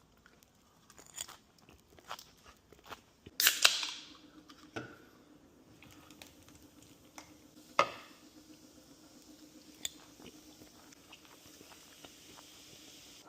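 Kitchen handling sounds: irregular clicks and knocks, with two louder clatters about three and a half and eight seconds in, and a faint steady hum from about five seconds in.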